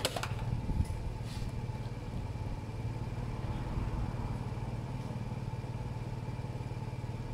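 A GY6-type 50cc four-stroke scooter engine idling steadily.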